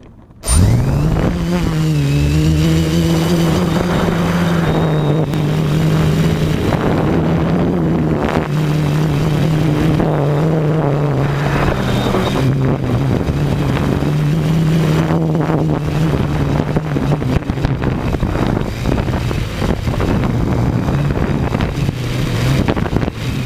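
A motor starting up about half a second in and then running steadily, its pitch stepping slightly up and down.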